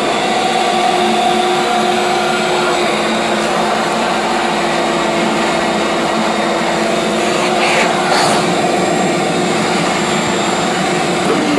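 A vacuum motor running with a steady, loud whine, which starts to wind down right at the end as it is switched off.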